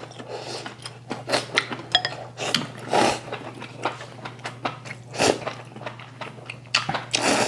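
Ramen noodles being slurped in a series of irregular, noisy sucks, with chewing between them, over a steady low hum.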